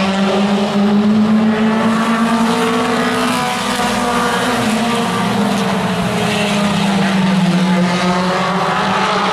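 Mini stock race cars' four-cylinder engines running hard at racing speed, several at once. Their steady drone drifts up and down in pitch as the cars pass and lift for the turns.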